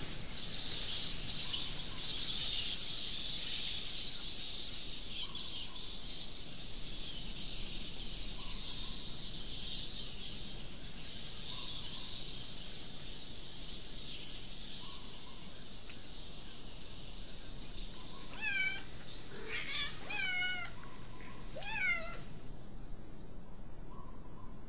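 A steady high-pitched night-insect drone, with a cat meowing several times in quick succession about three-quarters of the way through.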